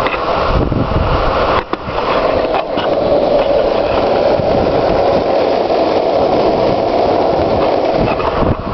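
Longboard wheels rolling on asphalt at high speed, with wind rushing over the microphone in a loud, steady roar that dips briefly about a second and a half in and again near the end.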